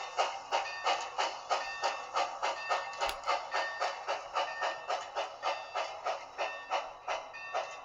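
An HO scale model steam locomotive's sound decoder chuffing in a steady rhythm of about three chuffs a second, with a faint steady tone underneath. The chuffs slowly fade, and a single sharp click comes about three seconds in.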